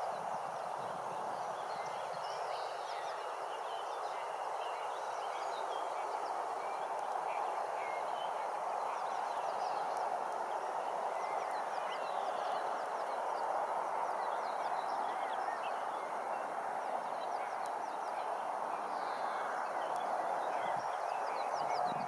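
Open-country ambience: a steady, even hiss with distant small birds chirping throughout.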